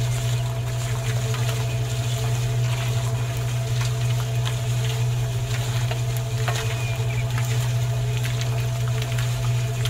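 Small electric motor of a miniature drink-can concrete mixer running steadily with a low hum as it turns the drum, with scattered faint ticks.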